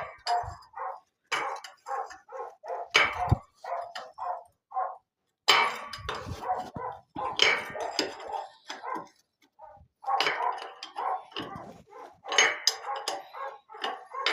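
A dog barking over and over, short barks several a second in runs with brief pauses between.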